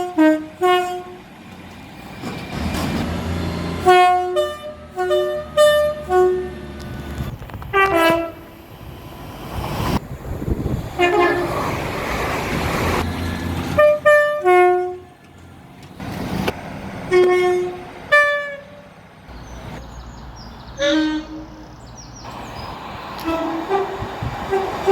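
Train horn sounding many short blasts, often in quick runs of two to five, with the low rumble of a running train between them.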